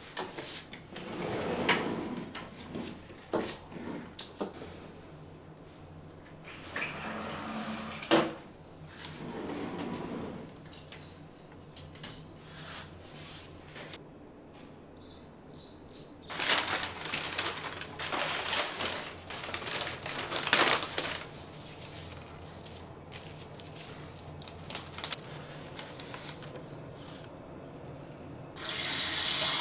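Quiet household movement sounds: soft footsteps in slippers and rustling, with a louder stretch of rustling about two-thirds of the way in. Small birds chirp in two short bursts around the middle.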